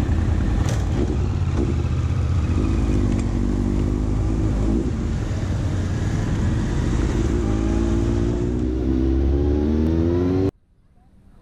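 Motorcycle engine running under way, heard from the moving bike, its note rising twice as it accelerates. The sound cuts off abruptly about ten seconds in.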